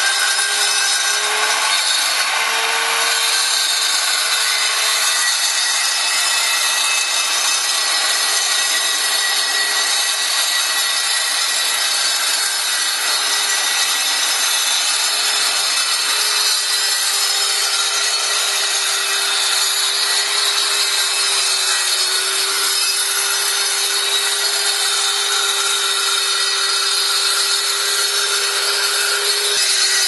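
Standard circular saw fitted with a diamond blade, cutting a shallow control joint (about 1/8 inch wide, 3/8 inch deep) into a concrete slab. It runs steadily under load, a constant motor whine over the grinding noise of the blade in the concrete.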